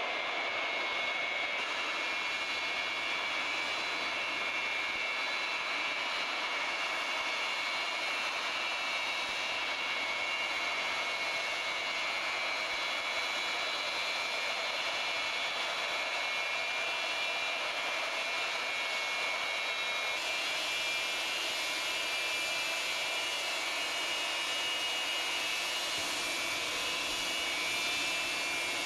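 Jet engines of a large high-wing transport aircraft running as it taxis, a steady whine with several high tones over a hiss. The hiss grows brighter about two-thirds of the way through as the aircraft comes closer.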